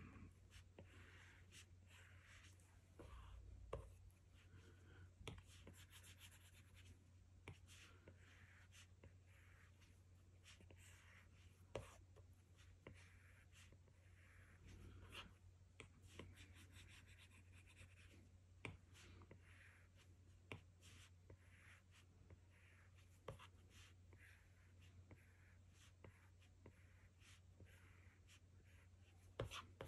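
Faint scratching of an Apple Pencil's plastic tip stroking across an iPad Pro's glass screen, in short strokes with pauses and scattered light taps as the tip touches down.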